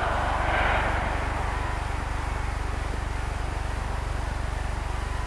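Steady low hum and hiss of an old film soundtrack, with a faint rapid flutter in the hum and a slight swell of noise in the first second or so.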